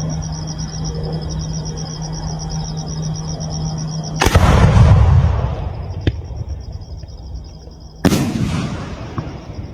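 4-inch (100 mm) display shell cake firing: two loud bangs about four seconds apart, each trailing off in a long rumbling echo, with a smaller sharp crack between them.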